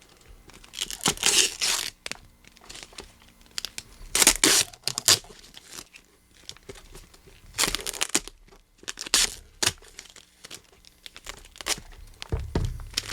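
Duct tape being peeled and ripped off a heavily taped package, in several separate noisy tears with crinkling between them, and a low thump near the end.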